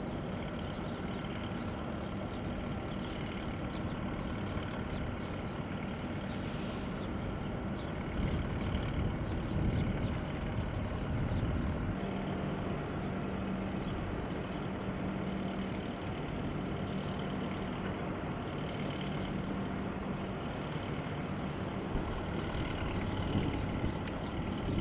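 Distant military aircraft engines running on an airfield: a steady rumble with a low hum that grows a little stronger about halfway through.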